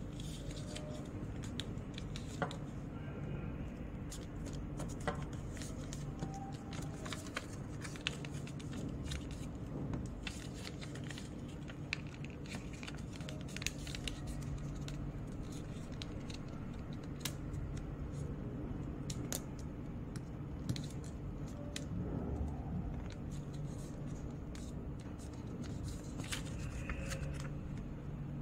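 A sheet of paper being folded and creased by hand into a paper airplane, with scattered crisp crackles and clicks of the paper over a steady low hum.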